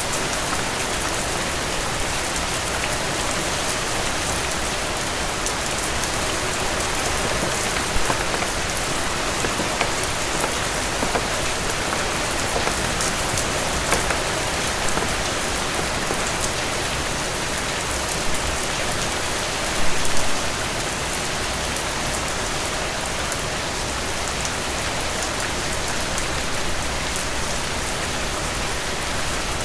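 Steady heavy rain falling on a surface, an even dense hiss with scattered louder drop impacts, a few stronger patters about 8, 14 and 20 seconds in.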